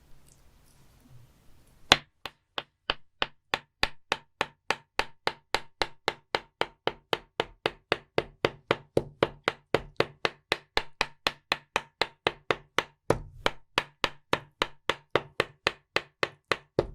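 Knife chopping live octopus on a cutting board: a steady run of sharp chops, about four a second, starting about two seconds in.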